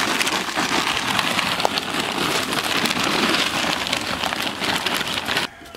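Lump charcoal pouring from a bag into a metal smoker firebox: a dense, rain-like clatter of pieces tumbling over one another, which stops abruptly near the end.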